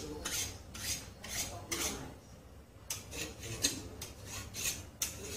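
Repeated metal-on-metal scraping strokes as a long steel tool is drawn along an old kitchen knife blade, about two hissing strokes a second, pausing for about a second midway before resuming.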